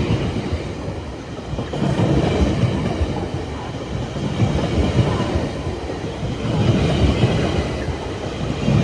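GO Transit bilevel passenger train passing close by, a steady rumble with repeated clacks as the wheels run over the rail joints.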